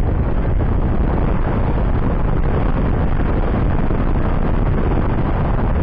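Steady wind rush on the microphone of a motorcycle in motion: a dense, even roar, heaviest in the low end, that hides the bike's own engine.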